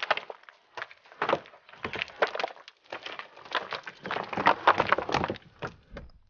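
Hand tools striking rock as miners dig a tunnel, many quick sharp blows in irregular clusters that cut off suddenly at the end.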